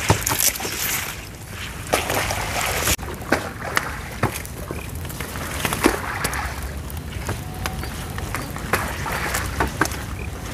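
Genjer (yellow velvetleaf) plants rustling, with irregular sharp snaps as their stalks are broken off by hand.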